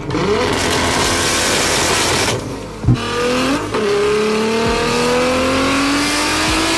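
Toyota Supra's turbocharged 2JZ straight-six revving hard on a chassis dyno. About two and a half seconds in the engine note drops out briefly with a sharp pop, then it pulls again, its pitch climbing steadily through a long wide-open run.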